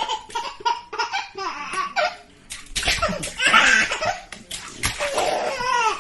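Baby laughing while slapping and splashing water in a kitchen sink: repeated quick splashes under bursts of laughter.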